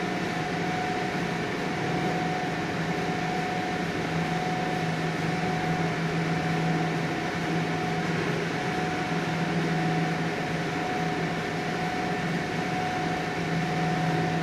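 Machinery of a gold ore processing pilot plant running: a steady mechanical hum with a constant low drone and a higher steady tone.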